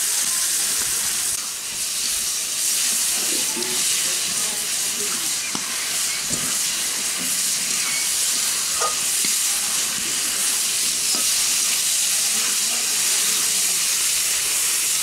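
Food sizzling steadily in hot oil in a kadai, stirred with a long metal spatula that clicks and scrapes against the pan now and then.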